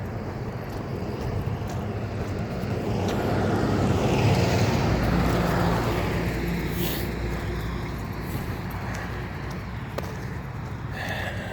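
A car passing by on the road: engine and tyre noise that swells to a peak about four seconds in, then fades away.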